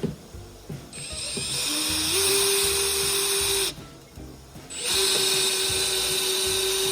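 Electric power drill running twice, first for about three seconds and then for about two, with a steady motor whine. In the first run the pitch steps up as the drill speeds up.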